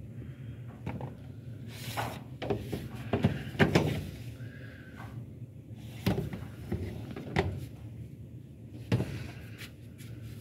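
Knocks and scrapes of stacked plastic rearing trays being handled, with a cluster of sharp clatters a few seconds in and a few more later, over a low steady hum.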